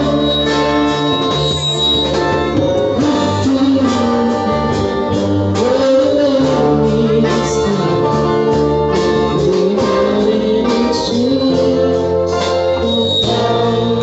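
Live band playing a song with a singer, over steady bass notes and a regular drum beat.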